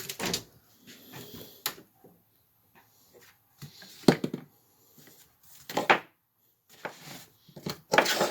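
A handful of irregular knocks, clatters and rustles, about five in all with quiet gaps between, as tools and objects are handled and set down.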